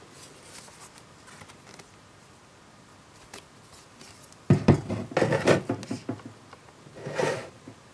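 A tablet being handled and set down on a wooden table. A sharp knock about four and a half seconds in is followed by a second and a half of clatter and rubbing, then a short swish or scrape near the end.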